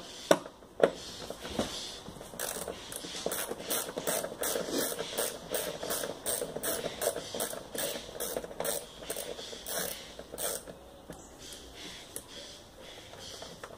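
Socket ratchet wrench clicking in an even run of strokes, about three a second, as a fastener is undone. Two sharp knocks come first, the clicking starts about two seconds in, and it stops a few seconds before the end.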